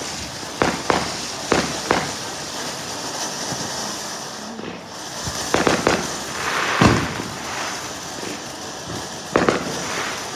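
Ground fountain firework spraying sparks with a steady hiss, broken by sharp pops: several in the first two seconds, a cluster around six to seven seconds in, the loudest near seven, and two more near the end.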